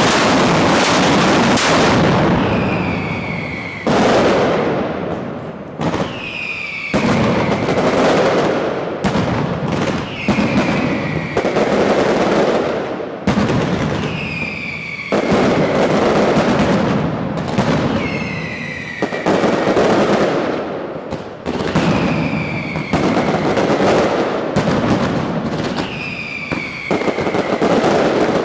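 Mascletà firecracker barrage: dense, loud crackling and banging in repeated surges, with descending whistling firecrackers recurring every two to three seconds.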